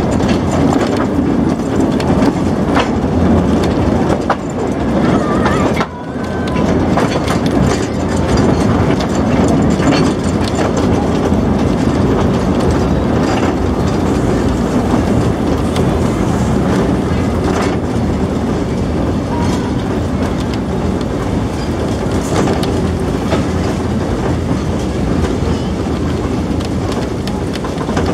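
Narrow-gauge museum train running along its track, heard from aboard a passenger car: a steady rumble of wheels on rails with light clickety-clack from the rail joints.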